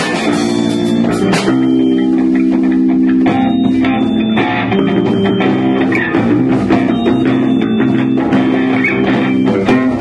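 A rock band playing live in a small room: electric guitar holding and changing sustained notes over a drum kit, with some bass underneath.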